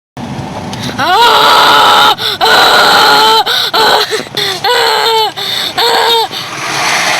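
A person screaming in fright: a run of loud, high shrieks of about a second each, with quick gasping breaths between them.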